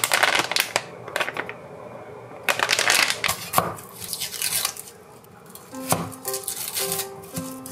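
A plastic pasta packet crinkling and being torn, in two rustling bursts, then a kitchen knife chopping garlic cloves on a wooden cutting board in sharp knocks. Light background music comes in near the end.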